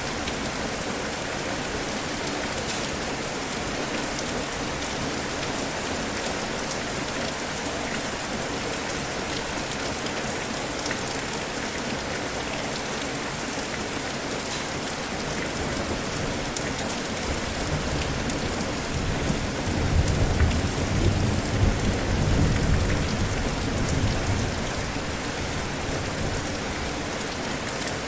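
Steady heavy rainfall. Thunder rolls in about two thirds of the way through as a low rumble that swells, peaks and fades away over several seconds.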